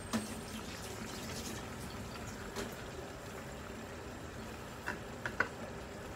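Sliced onions cooking in a pot over a low gas flame, a steady soft sizzle, with a few faint clicks about five seconds in.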